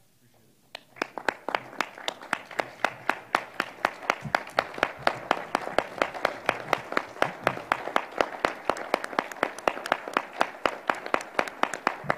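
A small group of people applauding, starting about a second in, with one clapper close by whose sharp, regular claps, about four a second, stand out over the rest.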